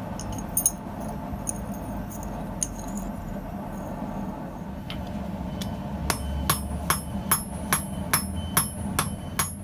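Light metallic clinks of forged steel scissor halves being handled on an anvil. Then, about six seconds in, a hand hammer begins striking a red-hot scissor blade held in tongs on the anvil, about two and a half blows a second, drawing the blade out. A steady low hum runs underneath.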